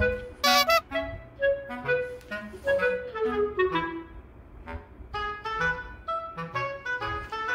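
Instrumental background music, a jaunty tune of short, separate notes, with a brief sharp noise about half a second in.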